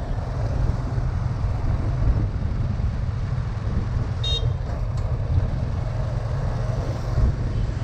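Motorbike on the move: a steady low rumble from the small engine. A short high horn beep sounds about four seconds in.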